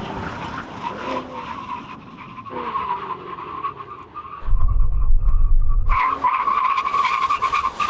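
Tyres squealing as heavy SUVs brake as hard as they can in an emergency stop from 100 mph. The steady high squeal grows much louder about six seconds in. A low rumble comes just before it.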